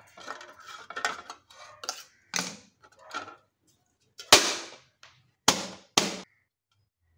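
A knife blade scraping around the inside rim of a stainless-steel cup, with small clicks, then the steel cup turned over onto a steel plate with a sharp clank and tapped twice more, half a second apart, to loosen the steamed cassava cake inside.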